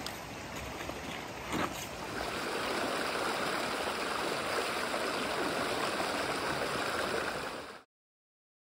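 Shallow mountain stream rushing over rocks, with a couple of short knocks in the first two seconds. The rush of the water grows louder about two seconds in, and the sound cuts off suddenly to silence near the end.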